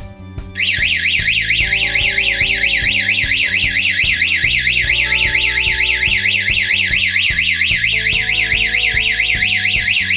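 Security alarm system's electronic siren sounding a fast warbling wail, rising and falling several times a second, starting about half a second in, a sign that the alarm has been triggered. Background music with a beat plays underneath.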